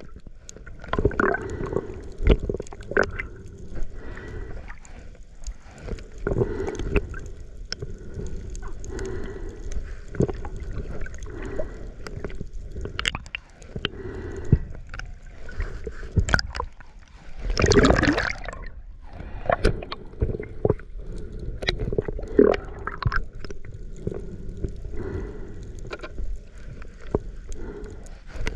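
Underwater sound picked up by a camera moving through the water: muffled gurgling and sloshing with many short, sharp clicks scattered through it. About two thirds of the way in, a louder rush of water lasts about a second.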